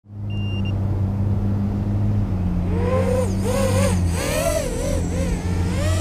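Motors and propellers of a LitisRC Cicada 180 4-inch FPV racing quad in flight: a steady low hum, then from about three seconds in a whine that rises and falls with the throttle. A short high beep sounds just after the start.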